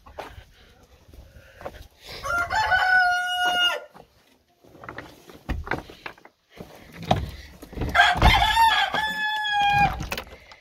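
A rooster crowing twice: one long cock-a-doodle-doo about two seconds in and another about eight seconds in. Short scuffs and knocks come in between.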